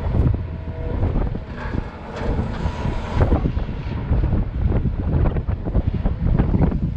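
Volvo EC210B LC hydraulic excavator's six-cylinder diesel engine running under load as the machine swings and dumps a bucket of dirt into a dump truck. The dirt and stones pour into the truck's bed with a rush of noise from about one and a half to three seconds in.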